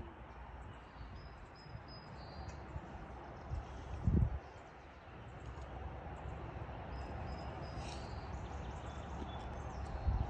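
Outdoor ambience with low wind rumble on the microphone and faint bird chirps in two short spells, broken by a single dull low thump about four seconds in.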